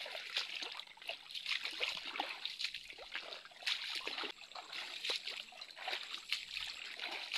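Shallow water splashing and trickling in quick, irregular bursts.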